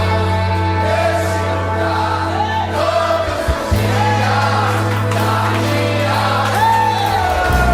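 Live gospel worship music: a choir or group of voices singing over sustained bass and keyboard chords.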